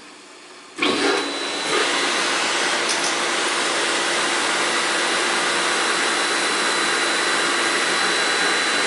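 Reverse osmosis system's pumps starting. There is a sudden start under a second in, the level steps up again about a second later as a second pump comes on, and then both run with a steady motor hum and hiss and a thin high whine.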